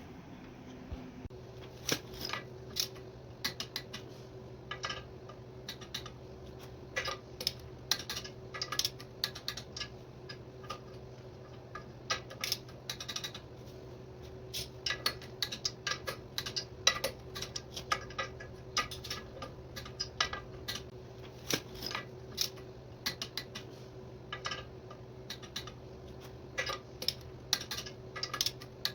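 Metal tools and parts clinking and tapping in irregular bursts, sometimes several a second, over a steady low hum.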